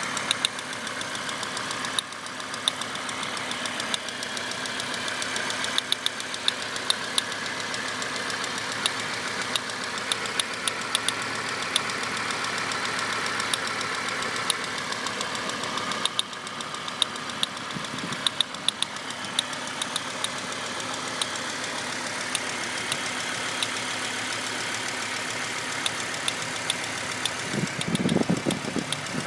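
1998 Volvo V70's five-cylinder engine running steadily, with irregular, sharp, plastic-like clicking from the back of the engine, of unknown cause. A brief louder low surge comes near the end.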